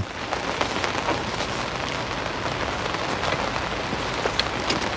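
Steady rain pattering on a fishing umbrella overhead and on the lake, a dense hiss of many small drop ticks.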